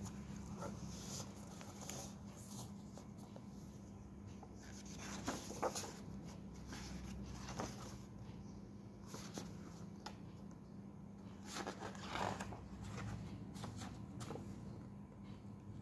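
Paper pages of a hardcover picture book being turned and handled: scattered rustles and light taps, with a steady low hum underneath.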